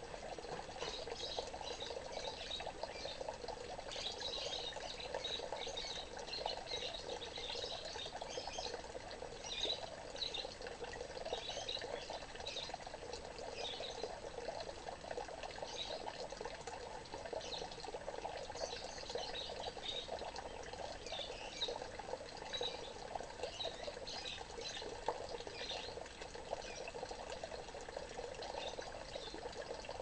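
Water pouring into a small garden pond: a steady splashing patter where the falling stream hits the surface.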